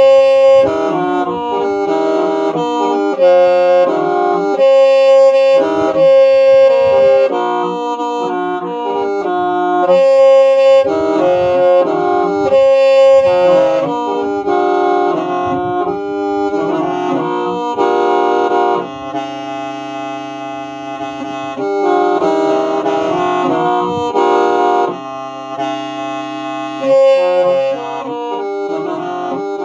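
Background music: a melody of held notes on a reedy wind instrument over sustained backing notes.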